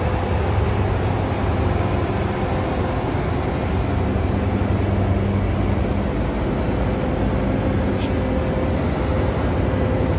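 NJ Transit ALP-45DP dual-mode locomotive running on its diesel engines close by: a steady low engine drone with a few humming tones over fan and machinery noise. A short faint tick about eight seconds in.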